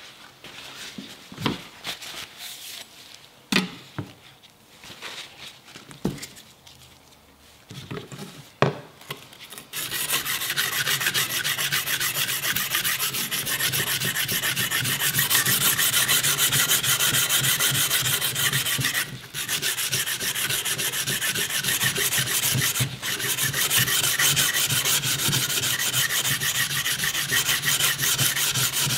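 A few scattered knocks and taps, then, about ten seconds in, continuous hand-sanding of a Sugimoto Japanese kitchen knife's steel blade with sandpaper: a dense back-and-forth rubbing, stopping twice for a moment. It is the sandpaper stripping the old patina from the blade.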